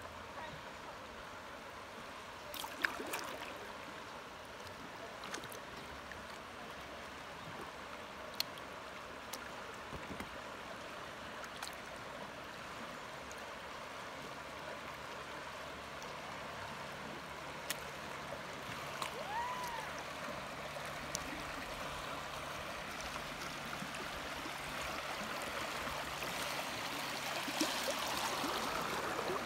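High, muddy creek water rushing and gurgling around a drifting kayak, growing louder near the end as the boat reaches choppier water. A few light clicks and one short chirp are heard along the way.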